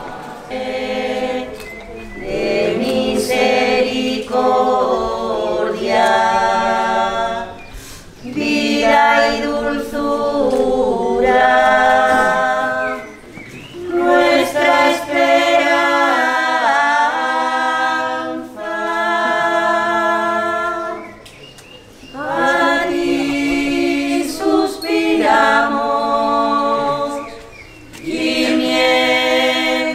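Unaccompanied religious singing in long phrases, with short pauses between them.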